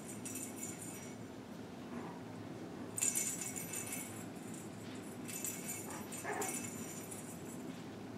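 Puppies playing with a jingling toy ball: two bursts of jingling, about three seconds in and again around six seconds, with a short puppy whimper among the second burst.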